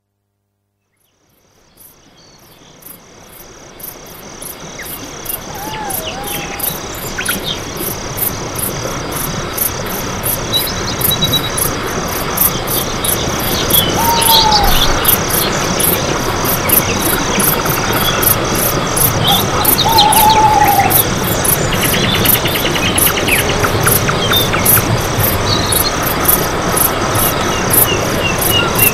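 Nature ambience: insects chirping in a fast, even pulse, with a few short, arching bird whistles and chirps. It fades in from silence over the first dozen seconds.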